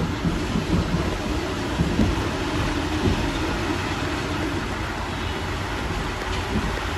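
Paris Métro Line 6 rubber-tyred train running along its elevated viaduct, a steady running noise of wheels and motors heard from inside the car. A few light knocks come in the first three seconds.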